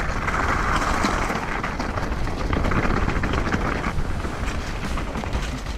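Wind buffeting the microphone over the rattle and tyre noise of a mountain bike being ridden on a wet trail, with many small clicks and knocks.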